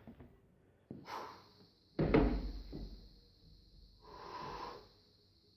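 Camera handling: a click and rustle, then a sharp thump as the camera is set down. About two seconds later comes a short breathy rush.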